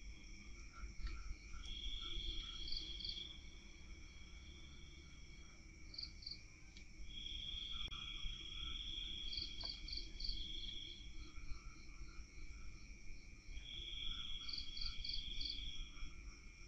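Crickets and other night insects calling: a steady high chorus, with a louder high trill rising up every few seconds and lasting a second or more each time, and short pulsing chirps in groups of two to four. A low rumble runs underneath.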